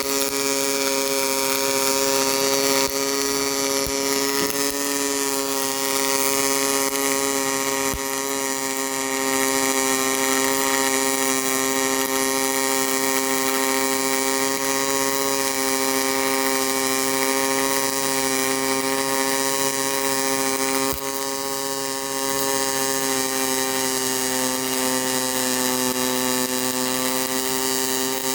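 Pulse MIG welding arc from an HTP Pro Pulse welder: a steady, pitched buzz at the pulse rate over a crackling hiss. It dips briefly about two-thirds of the way through.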